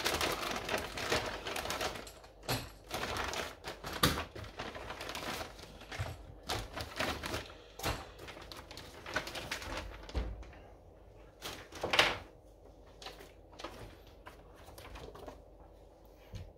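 Clear plastic packaging bag crinkling and rustling as it is handled, densest in the first half, then sparser rustling of paper leaflets with a couple of sharp knocks, one about four seconds in and one about twelve seconds in.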